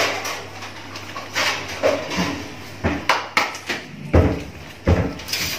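Kitchen cupboard doors and a plate knocking and clattering against the counter: a string of sharp clicks and knocks, with two heavier thuds about four and five seconds in.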